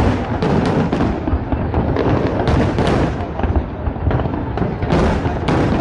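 Fireworks display: aerial shells bursting in a dense, overlapping barrage of deep booms, with sharper bangs every second or so.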